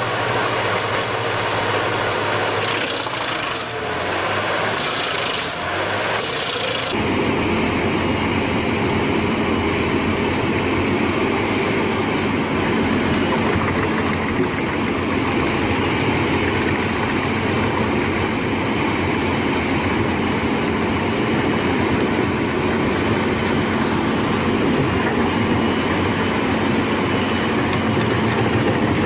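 Large wood chipper running: a steady, loud mechanical din of its engine and cutting drum. The sound changes abruptly about seven seconds in to a fuller, steady running.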